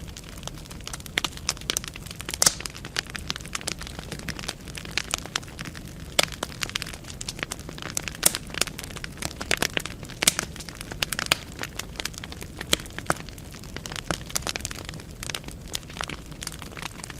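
Wood fire burning in a fireplace: dense, irregular crackling and sharp pops of the burning logs over a steady low hiss of the flames.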